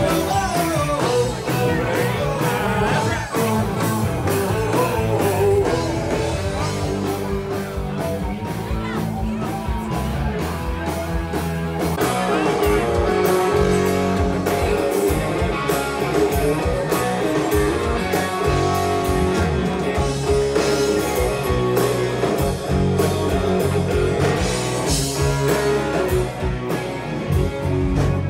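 Live rock band playing through a PA: electric guitars and a drum kit keeping a steady beat, with singing.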